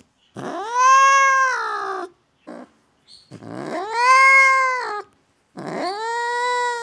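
Ginger domestic cat yowling in three long, drawn-out calls, each rising at the onset, holding steady and sagging at the end, with a short cry between the first two.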